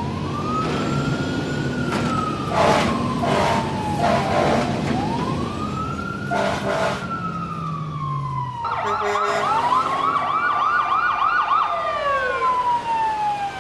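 Fire truck siren sound effect wailing in slow rises and falls, over a low engine rumble, with a few short horn blasts. About nine seconds in it switches to a fast yelping warble: the fire truck is on its way to an emergency call.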